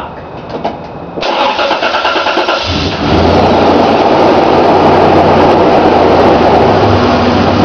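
1999 Toyota Tacoma engine cranked over by the starter for about a second and a half, then catching about three seconds in and running steadily. It runs with a slight knock that the owner puts down to carbon build-up.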